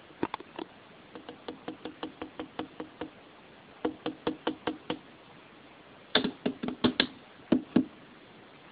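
Quick, light knocks in a pet rodent's cage, in runs of about five a second. A louder cluster of knocks comes in the last few seconds.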